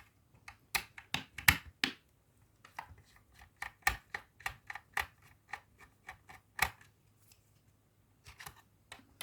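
Irregular sharp clicks and ticks of a screwdriver working screws out of the plastic case of a digital TV receiver, several a second, thinning out near the end.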